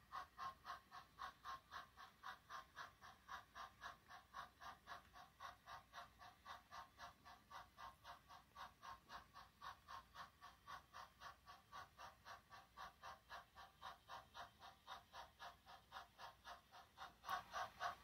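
Faint, regular pulsing of about three beats a second from the HO scale model train running through the cut, each beat a short ringing tone; it grows louder near the end.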